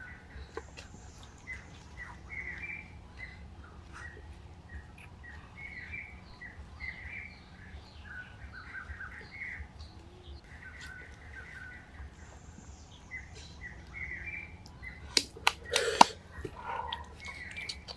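Birds chirping in short, repeated calls, with a few sharp knocks close together near the end, the loudest sounds here.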